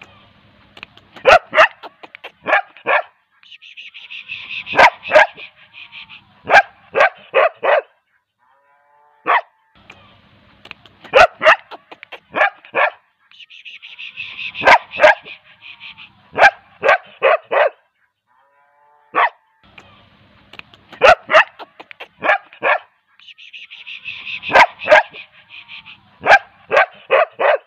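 A dog barking: clusters of sharp, loud barks with short pauses and a rasping stretch among them. The same sequence repeats about every ten seconds, three times over.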